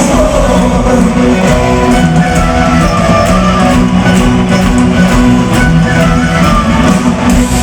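Folk-metal band playing live, loud: an instrumental passage of strummed electric guitars over bass and drums keeping a steady beat.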